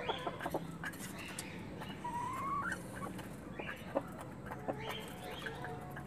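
Desi golden Misri hens clucking as they feed on grain from a clay dish, with scattered sharp pecking taps and one drawn-out rising call about two seconds in.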